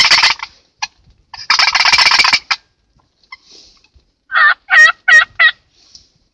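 Wild turkey gobbling twice, each gobble a loud rattling burst about a second long, followed a couple of seconds later by a run of four short yelps.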